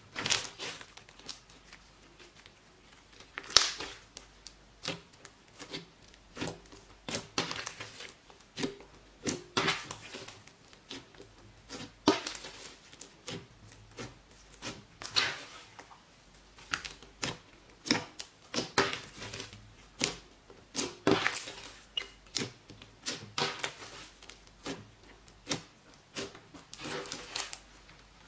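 Thick glittery slime being pressed, folded and poked by hand: irregular sticky pops, clicks and crackles as it stretches and air pockets burst, with a few louder squelches.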